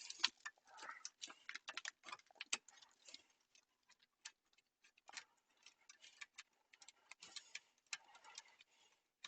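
Faint, irregular light clicks and taps.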